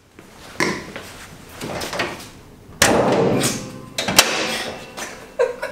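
First-generation Toyota Tacoma's hood being opened by hand: a series of clunks and clicks from the latch and the steel hood, with a sharp click just after four seconds in.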